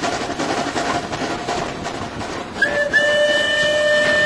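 Steam whistle of the 1883 Couillet tank locomotive FNM 200.05: a short toot about two and a half seconds in, then a longer steady blast, over the locomotive's running noise on the track.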